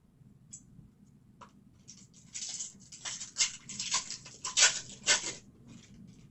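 Trading cards and foil pack wrappers being handled: a few light clicks, then a run of rustling, sliding and crinkling strokes for a few seconds.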